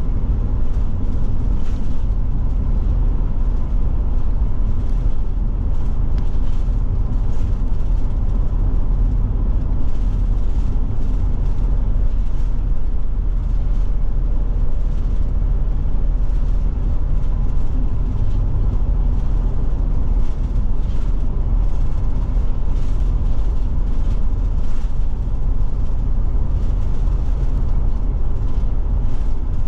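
Forest River Forester motorhome driving at steady speed: a constant low rumble of engine and road noise that does not change through the stretch.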